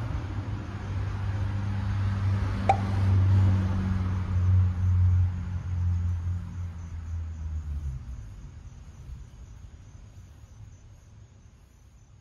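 A passing motor vehicle's low engine rumble, fading away over the last several seconds, with one sharp click about three seconds in.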